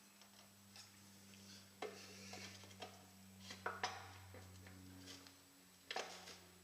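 Faint, scattered metal clinks and knocks of tyre levers against the wheel rim and tyre as a motorcycle tyre bead is levered over the rim, with a few sharper knocks around the middle and near the end.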